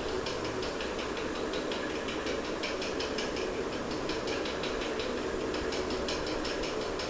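Raw chicken pieces frying in hot oil in a nonstick pan, with irregular crackling and spitting over a steady low hum.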